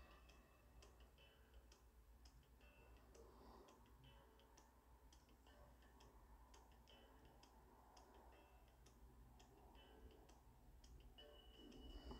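Near silence with faint, irregular clicks and taps: a silicone spatula knocking and scraping against a glass bowl while minced chicken is mixed.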